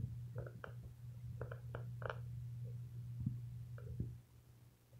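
A steady low hum with scattered faint clicks and knocks over it; it goes quieter near the end.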